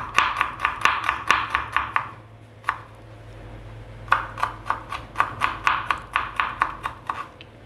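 Kitchen knife rapidly mincing garlic on a wooden cutting board: quick knocks of the blade on the board, about five or six a second. The chopping pauses for about two seconds partway through, then resumes.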